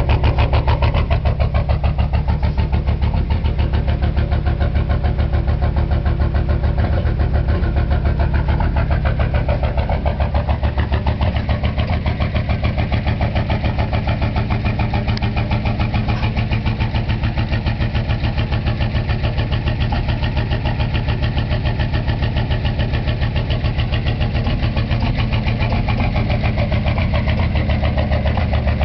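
GM 6.5-litre V8 diesel idling with a steady, even pulse just after a cold start. The block heater was not plugged in.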